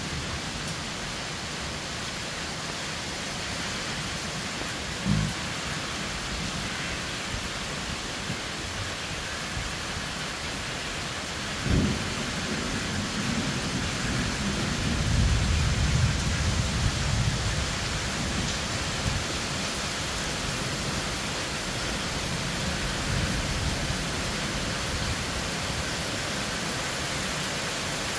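Torrential rain hissing steadily in a heavy downpour, with two short sharp cracks of thunder, about five and about twelve seconds in. The second crack is followed by several seconds of low rumbling thunder, the loudest part of the storm.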